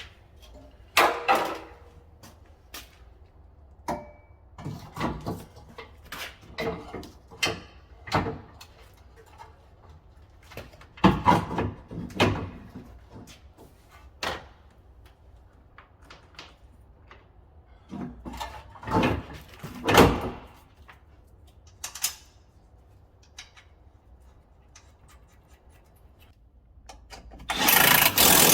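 Irregular knocks, clunks and short bursts of handling noise from hands-on work, over a low steady hum, with a louder rushing burst near the end.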